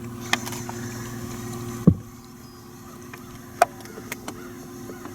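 Sounds aboard a small fishing boat on a lake: a steady low hum that falls away about two seconds in with one loud knock on the hull. Then lighter clicks and knocks follow over the lapping of water.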